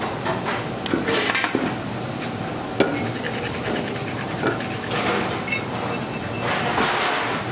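Wooden Springerle mold being rubbed with dusting flour and handled on a wooden bench: several brushing swishes and light knocks of wood on wood, with one sharp knock about three seconds in.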